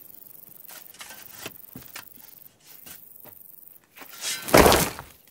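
Shovels and picks striking and scraping gravelly dirt in a string of short strikes. About four seconds in comes a loud rush of a shovelful of dirt and gravel being thrown and spilling down.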